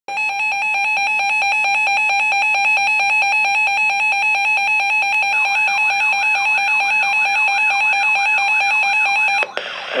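Reecom weather alert radio sounding its warning alarm: a loud, rapid, evenly pulsed beeping, with a warbling tone joining about halfway through. Both stop suddenly near the end. The alarm signals that a severe thunderstorm warning has been received.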